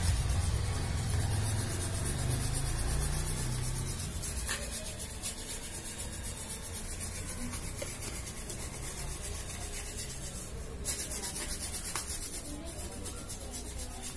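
A brush scrubbing a copier's control-panel circuit board wet with cleaning liquid: steady rubbing with fine, rapid strokes.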